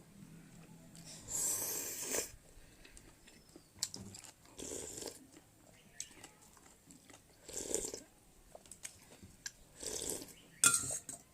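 A person eating close to the microphone: chewing and mouth noises, with a short noisy burst every two to three seconds and a sharp click near the end.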